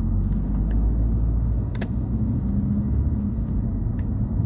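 Car driving along a city road, heard from inside the cabin: a steady low rumble of engine and tyres, with a few faint clicks.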